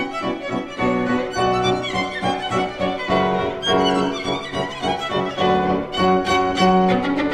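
Instrumental background music: a violin-led melody of held notes that change every half second or so.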